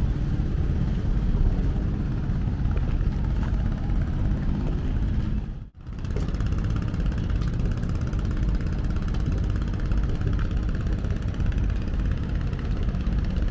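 Boat engine idling, a steady low rumble, with a brief dropout about six seconds in.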